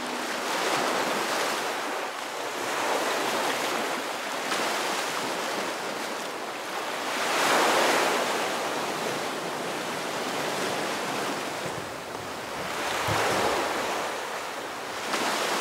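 Ocean surf: waves washing in and drawing back, the rush of water swelling and fading every few seconds.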